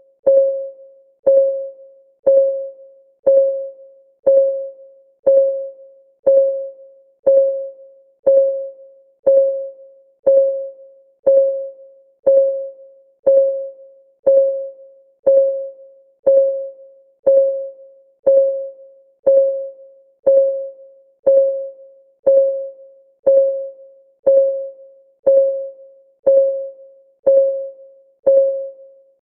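Countdown timer's clock-ticking sound effect: one steady tick per second, each a sharp click carrying a short ringing tone that fades before the next.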